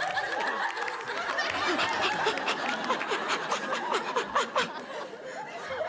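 Studio audience laughing, with scattered clapping.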